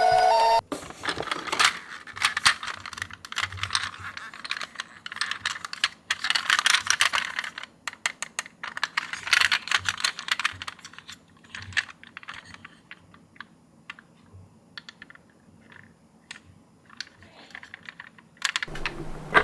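Small die-cast toy ambulances clicking and clattering against one another and a hard surface, in dense irregular runs that thin out to scattered ticks after about eleven seconds. A siren sound cuts off just after the start, and a louder steady noise begins near the end.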